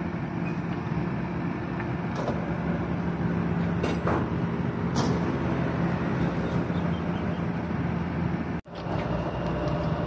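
Steady machinery hum from an engine or motor, with a few sharp metallic clinks.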